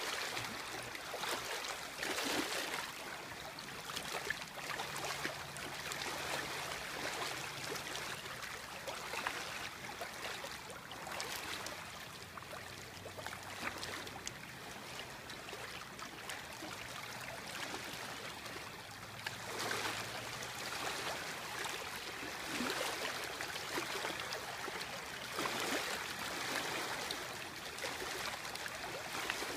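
Small river waves lapping and splashing at the water's edge, a steady wash that swells every few seconds. A faint low hum runs underneath.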